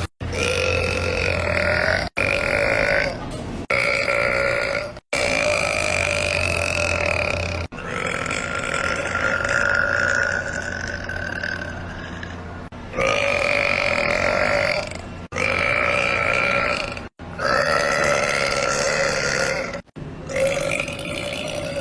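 A string of long, drawn-out human belches, each lasting from one to about five seconds. They are edited back to back, with abrupt cuts between them.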